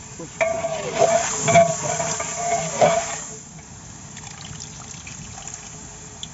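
A long metal ladle stirring chicken pieces in broth in a large aluminium degh: liquid sloshing, with a few knocks and scraping against the pot. It stops about three seconds in.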